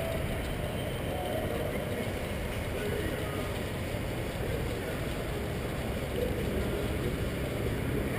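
Steady muffled rumble and rubbing from a GoPro strapped to a greyhound's back as she moves about, with faint distant voices mixed in.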